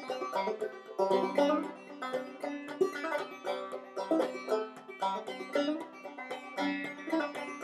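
Solo clawhammer banjo playing an old-time tune, with brisk downstroke-picked notes over a steady drone.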